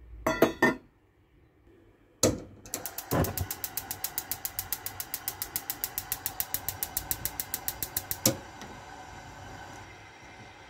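A few knocks, then a gas stove's igniter clicking rapidly and evenly, about eight clicks a second for some five seconds while the knob is held in. After the clicking stops, the lit burner keeps up a steady faint hiss.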